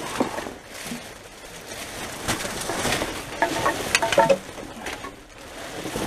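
Plastic rubbish bags and loose garbage rustling and crinkling as they are rummaged through by hand, with irregular crackles and a few short high squeaks in the middle.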